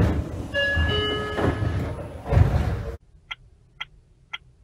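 Seibu 9000-series train's sliding doors working, with a rush of air, short squeaks and a loud thump about two and a half seconds in. It cuts off suddenly, and then light ticks come about twice a second.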